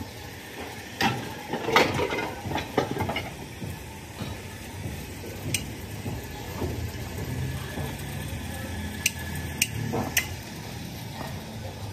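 Scrap metal pump and motor housings clanking and clinking as they are picked through by hand: a run of knocks in the first few seconds, then a few sharp single clinks, three of them close together near the end.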